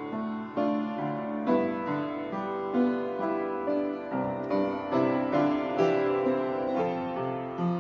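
Background music on piano: a slow, gentle run of single notes and chords.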